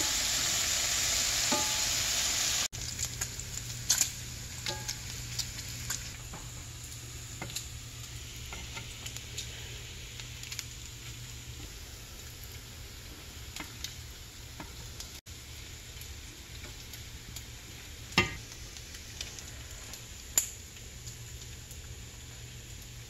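Bacon sizzling in hot grease in a cast iron skillet, with metal tongs clicking as the strips are turned and lifted out. The sizzle drops in level abruptly about three seconds in, and two sharp clicks stand out near the end.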